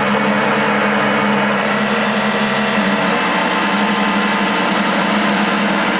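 Circuit-bent Yamaha PSS-790 vector-synthesis keyboard putting out a steady, unbroken droning tone over a dense noisy hiss, the glitched sound of its bent circuitry.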